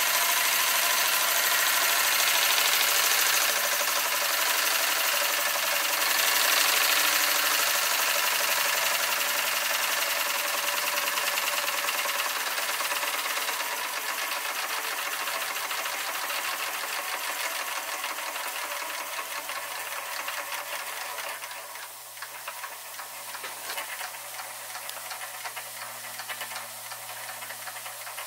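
Doll 365 twin-cylinder toy steam engine running fast on live steam: a rapid mechanical clatter from the cylinders and linkage over a steady steam hiss. It grows quieter from about halfway and drops about 22 seconds in, leaving a fainter run and hiss.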